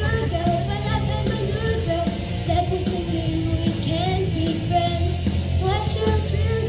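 Music of a song playing: a melody line that moves up and down over a steady low bass.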